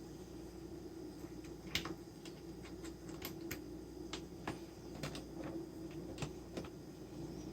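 Irregular light clicks and taps of small hard parts being handled, about a dozen of them and the loudest nearly two seconds in, over a steady low hum.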